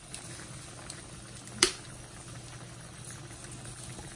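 Skillet of mackerel and vegetables in liquid simmering steadily, with a single sharp click about one and a half seconds in.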